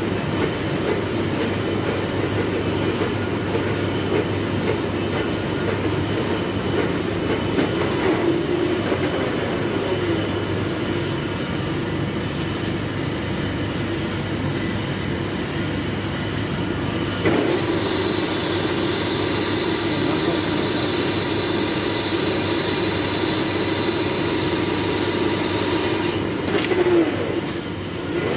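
Metal lathe running steadily while turning a large iron workpiece. A high-pitched whine joins in a little past halfway and stops after about nine seconds.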